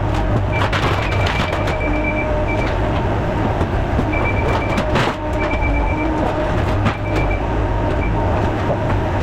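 Skid steer's diesel engine running with a steady low rumble, with short intermittent high squeals and several sharp metal knocks from the machine working.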